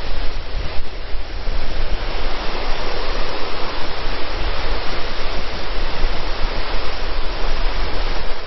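Loud, steady rushing of water from a waterfall of about 90 feet, heard close to its base.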